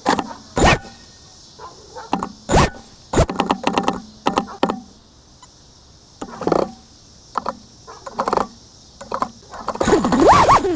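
FPV quadcopter stuck high in a tree, its motors in turtle mode kicking in short bursts that stall against the branches and are cut off each time by the Voltara ESC's stall protection. The last, longer burst wavers up and down in pitch.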